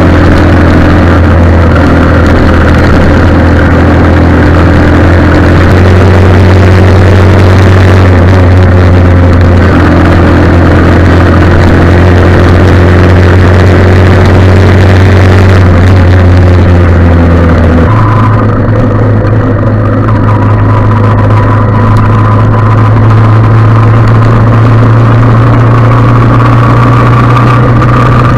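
Loud, steady engine drone that keeps running throughout and steps up to a higher pitch about eighteen seconds in.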